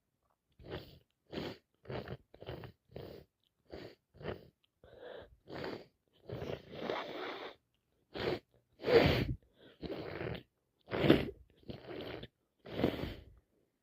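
A person with a runny nose making a quick series of short, wet sniffing sounds, then several longer, louder sneezes in the second half, wet and snotty.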